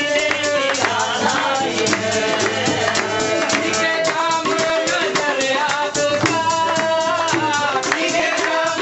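Qawwali sung by men's voices over a steady fast beat of hand drums, with one long held note about two-thirds of the way through.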